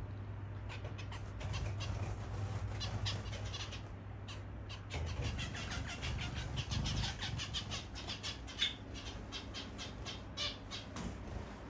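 Zebra finches calling again and again with short, quick calls, over a steady low hum.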